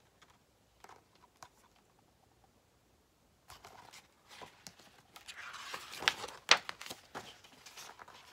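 Paper page of a large picture book being turned: rustling starting about three and a half seconds in, with two sharp snaps about six seconds in.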